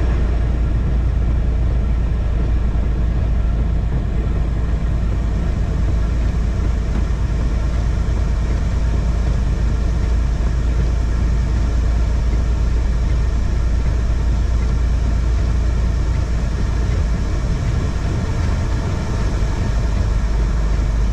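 Heavy truck running with a steady, deep engine and road drone.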